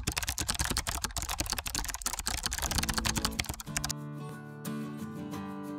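Typing sound effect: rapid keyboard clicking for about four seconds that stops abruptly. Background music with guitar fades in under it and carries on alone.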